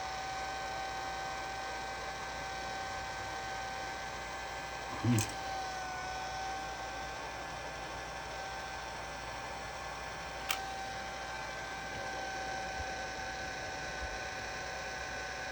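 Hot-air gun blowing steadily, a constant fan hum with a whining tone that dips slightly about six seconds in, heating the phone part to loosen its adhesive. A short vocal sound about five seconds in and a sharp click near ten seconds.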